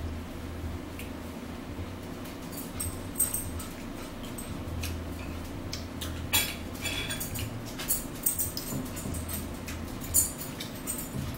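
Metal forks clinking and scraping against plates and a bowl during a meal, with scattered sharp clinks, the loudest about three, six and a half, eight and ten seconds in, over a steady low hum.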